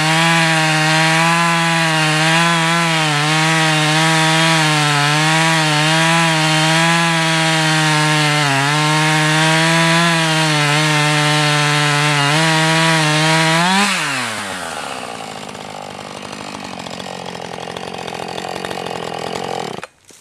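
Husqvarna 450 chainsaw's 50 cc X-Torq two-stroke engine running at full throttle while the chain cuts through a log, its pitch dipping slightly under load now and then. About fourteen seconds in the throttle is released and the engine winds down to a rougher idle.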